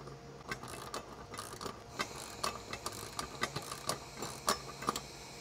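Ratchet wrench clicking in short, irregular strokes, snugging nuts onto the bolts that clamp the rooftop tent's mounting sandwich plates to the roof-rack rails.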